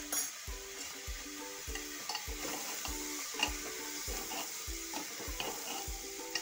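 Steel ladle stirring and scraping bottle gourd and chana dal in an aluminium pressure cooker, with sharp clicks of metal on metal over a steady sizzle of the frying food. Background music with a steady beat plays under it.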